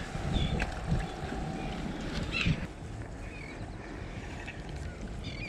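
Wind buffeting the microphone as a steady low rumble, with a few faint, brief sounds above it, the most marked about two and a half seconds in.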